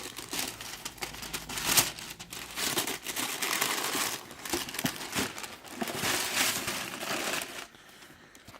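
Tissue wrapping paper crinkling and rustling as it is handled and pulled open, in uneven surges, dying down near the end.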